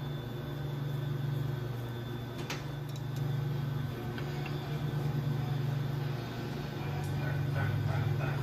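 Steady low mechanical hum of shop background, with a few faint metal ticks as a steering rack extension is threaded in by hand.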